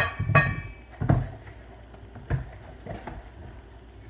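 Kitchen items being set down and moved on a countertop: a few separate knocks and clatters, the loudest at the start with a brief metallic ring, then single knocks about a second and about two and a third seconds in.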